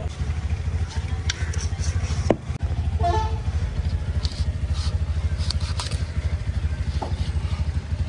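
A motor vehicle engine running steadily with a low, fast-pulsing rumble, over scattered clicks and scrapes of a knife cutting through a large fish.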